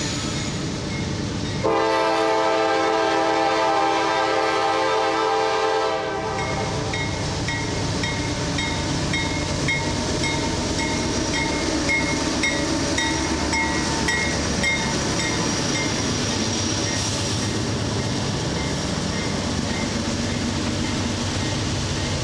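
A Norfolk Southern freight train passing close by: the lead GE Dash 9-44CW locomotive sounds one long air-horn blast starting about two seconds in and lasting about four seconds. After that a bell rings about twice a second for several seconds over the rumble of the passing diesels. Loaded flatcar wheels then clack over the rail joints.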